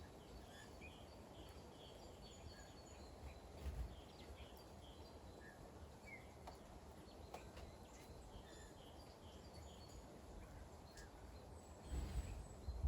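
Quiet outdoor ambience in light winter rain: a steady low rumble with faint, scattered high ticks. Brief low buffets of wind on the microphone come at about four seconds and again near the end.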